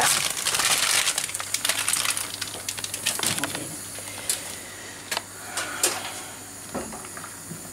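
Plastic noodle packaging crinkling and rustling for about two seconds, then a few scattered light clicks and knocks over a faint steady low hum.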